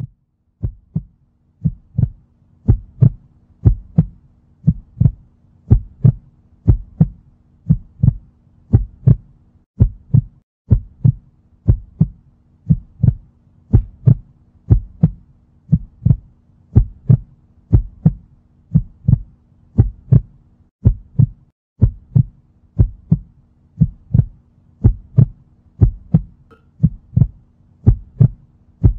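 Heartbeat sound effect: a steady rhythm of low thumps, over a low steady drone that drops out briefly twice.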